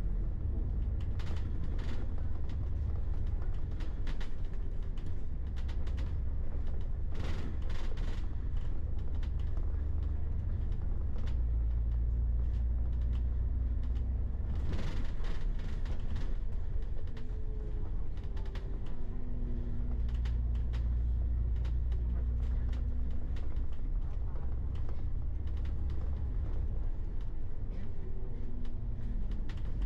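Riding inside a bus: a low engine drone that swells and eases, with the cabin rattling and creaking over it.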